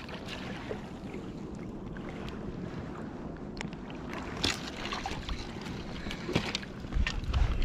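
Water splashing and dripping as a smallmouth bass is scooped into a landing net beside a float tube, with sharper splashes about four and a half and six and a half seconds in. Wind rumbles on the microphone near the end.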